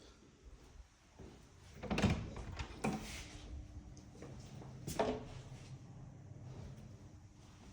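A door being opened and closed indoors: a few knocks and clunks, the loudest about two seconds in and another sharp one about five seconds in.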